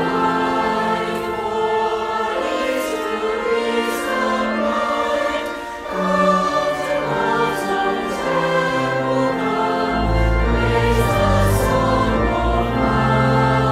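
Choir singing a hymn with instrumental accompaniment; a deep, sustained bass comes in about ten seconds in.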